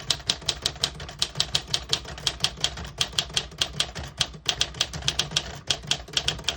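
1952 Smith-Corona Silent portable typewriter being typed on quickly, a steady run of key strikes at about five or six a second. Its typing is a little more muffled than a typical typewriter's, but not silent.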